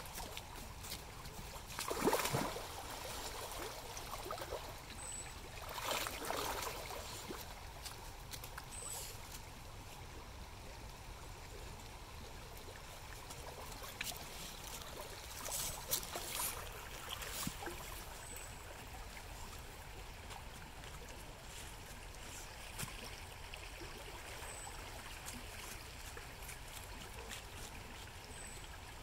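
Shallow river running over gravel, with a few sharp splashes about two and six seconds in and a quicker cluster of smaller ones around the middle: coho salmon thrashing at the surface while spawning.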